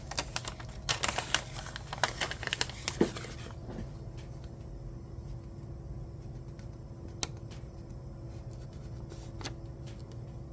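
Paper and cardboard packaging handled during an unboxing: quick rustling and small clicks for about three and a half seconds, then a steady low hum with two single clicks.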